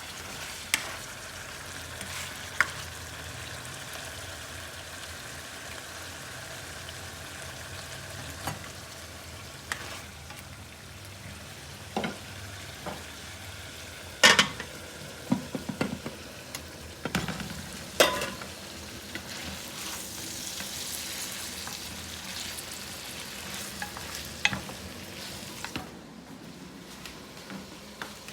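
Food sizzling as it fries in a pan, a steady hiss broken by sharp knocks and scrapes of a utensil stirring against the pan, loudest about halfway through.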